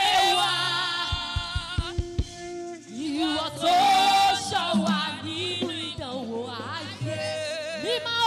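Live gospel praise singing: a female lead voice with backing singers over band accompaniment, with a short run of low drum hits about a second in.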